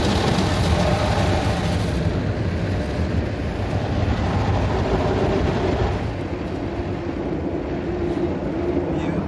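Automatic drive-through car wash machine working over a car, heard from inside the cabin: a steady rushing of brushes and water against the bodywork over a motor hum. The hiss eases about two seconds in.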